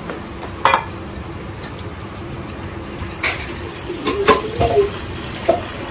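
Stainless steel pots, lid and ladle clanking by a kitchen sink: several sharp metallic knocks, the loudest about four seconds in, over tap water running into a steel pot.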